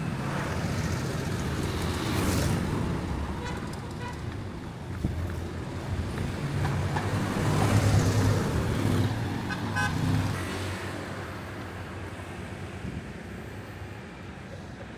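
City street traffic: engines and tyres of passing cars and other vehicles, swelling as one passes close about eight seconds in. A few short high beeps sound about ten seconds in, then the traffic eases.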